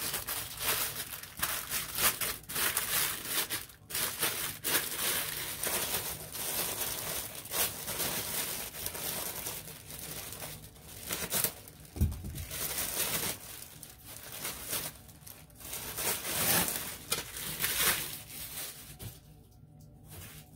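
Plastic packaging wrap crinkling and rustling as a clear plastic organizer tray is unwrapped and handled, in irregular bursts, with one dull thump a little past halfway. The rustling dies down near the end.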